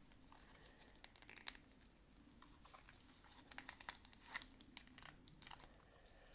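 Faint scattered clicks and rustles of a plastic miniature being handled as its wings are pushed into their slots on the dragon body, the sharpest click about four seconds in.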